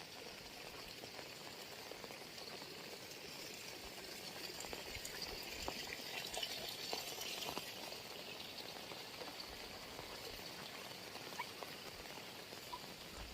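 Heavy rain falling, a steady hiss dotted with the small ticks of individual drops, swelling a little in the middle.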